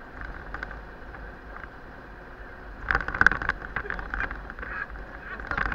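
A fire-brigade vehicle driving, heard from inside the cab as a steady running and road hum. From about three seconds in come irregular clusters of sharp rattles and knocks.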